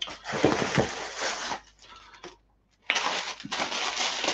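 Brown paper packaging rustling and crinkling as it is handled, in two stretches with a short pause about two and a half seconds in.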